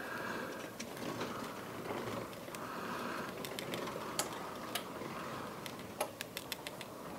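Old adhesive being picked and scraped off the edge of a tablet's LCD screen assembly: soft scratching with scattered sharp clicks.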